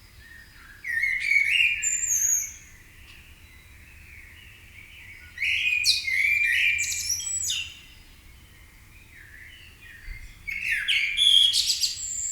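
Songbirds in a morning dawn chorus: one bird sings three loud phrases of quick sweeping, chirping notes, about five seconds apart, over fainter calls from other birds.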